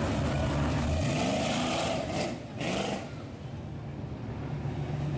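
Open-exhaust drag car, a first-generation Chevrolet Camaro, driving close past with its engine running loud. From about a second in the engine rises in pitch as the car accelerates away, and the sound drops off after about three seconds.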